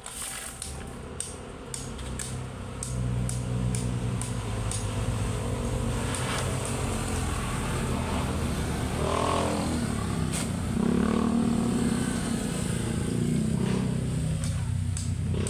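A motor vehicle engine running, louder from about three seconds in, its pitch rising and falling around the middle of the stretch as it revs or passes. A few faint clicks are heard over it.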